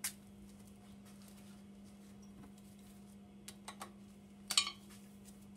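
A few light clicks and knocks of hand tools and metal parts being handled, the loudest about four and a half seconds in, over a steady low hum.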